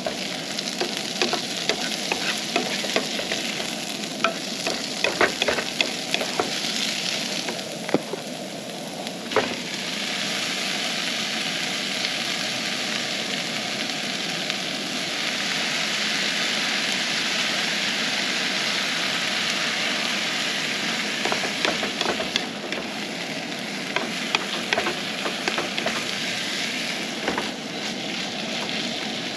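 Fried rice and vegetables sizzling in a nonstick skillet on a camp stove. A wooden spatula clicks and scrapes against the pan as it is stirred, often in the first third and again near the end, with a steadier sizzle between.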